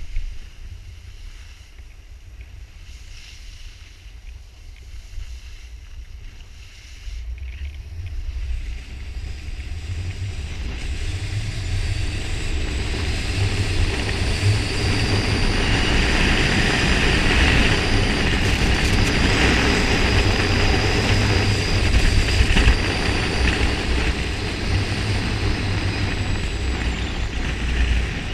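Wind buffeting an action camera's microphone while skiing downhill, a heavy rumble over the hiss of skis sliding on packed snow. It grows much louder about a quarter of the way in as the skier picks up speed, and stays loud.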